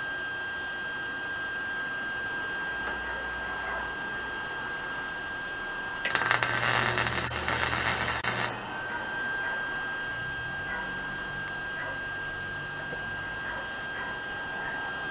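MIG welder laying a short weld on the steel go-kart frame: a loud, continuous crackle that starts about six seconds in and stops after about two and a half seconds. A steady electrical hum with a thin high whine runs underneath before and after.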